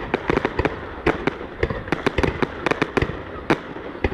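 Fireworks going off: a rapid, irregular run of sharp bangs and cracks, several a second, over a continuous low rumble.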